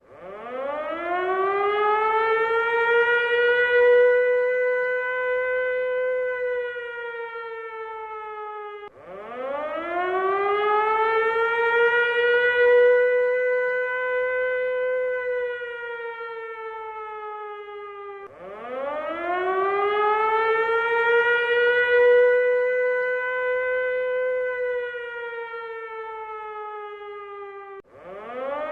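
Air-raid siren wailing: the tone climbs over about two seconds to a steady high note, sags a little, then breaks off abruptly and starts climbing again, in three cycles about nine seconds apart.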